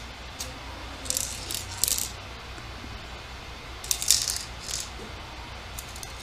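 Short bursts of plastic clicking and rattling from an airsoft pistol magazine being handled, a few clicks about one and two seconds in and another cluster around four seconds.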